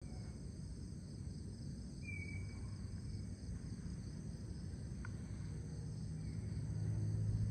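Steady, high-pitched chorus of crickets and other night insects, over a low rumble that grows louder near the end. A short, slightly falling chirp comes about two seconds in, and a single faint click about five seconds in.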